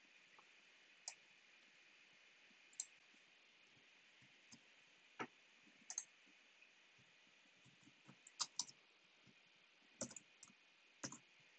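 Faint, sparse clicks of a computer keyboard and mouse, single clicks a second or two apart with short clusters about eight seconds in and again around ten seconds, over a low steady hiss.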